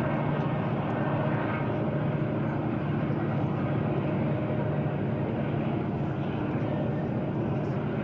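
EMD SD40-2 diesel locomotives hauling a freight train, their engines running with a steady low drone.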